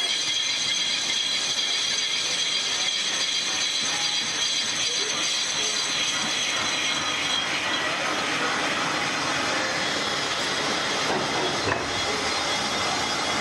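Metal lathe turning a cast brake drum, the cutting tool taking a continuous cut: a steady machining noise with a high metallic whine and whistling tones over the running machine.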